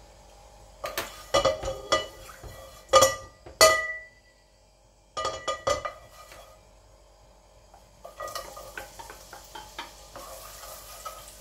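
A metal spoon clinks against metal bowls: several sharp, ringing strikes in the first six seconds. From about eight seconds in, sliced shallots sizzle and crackle as they go into hot oil in a wok.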